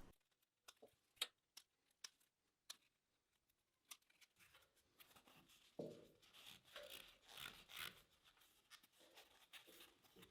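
Faint handling sounds of hand work on pipe insulation: scattered light clicks, with a few soft rasping rustles about six to eight seconds in.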